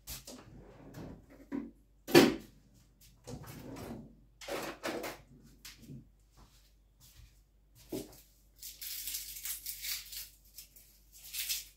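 Kitchen food-preparation noises: scattered knocks and clatter, the loudest a sharp knock about two seconds in, then a high-pitched rustling hiss lasting over a second about nine seconds in and a shorter one near the end.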